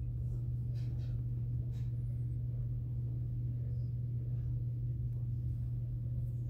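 A steady low hum, with a few faint soft puffs as a man draws on a tobacco pipe, about one and two seconds in.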